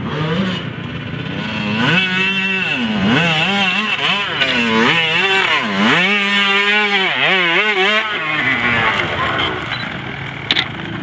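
Off-road dirt bike engine revving hard on a steep dirt hill climb, the revs swinging up and down again and again for several seconds before dropping away. A few sharp knocks near the end.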